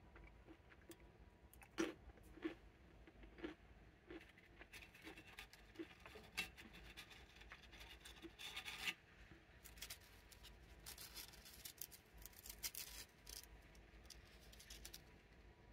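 Faint handling of thin Pringles crisps: a few soft clicks as they are picked from the plate, then denser crackly scratching and rubbing from about five seconds in as the chips scrape and tap against each other while being stacked in the hand.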